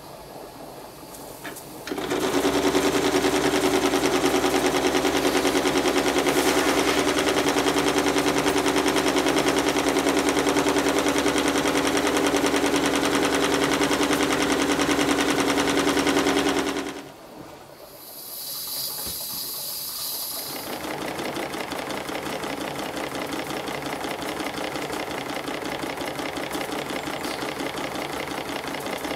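Stuart triple expansion model steam engine running in steam, starting about two seconds in with a fast, even clatter of exhaust beats and valve gear. Partway through it drops away briefly with a short high hiss, then runs on a little quieter.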